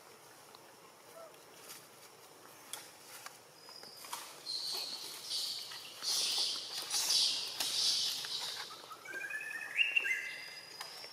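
High-pitched animal calls: a run of shrill, hissy screeches over several seconds, then a few short rising chirps near the end.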